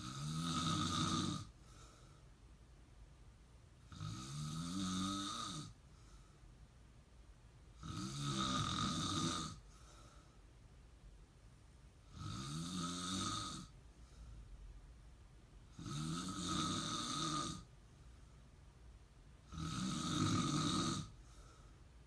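A man snoring in a steady rhythm: six snores about four seconds apart, each lasting about a second and a half.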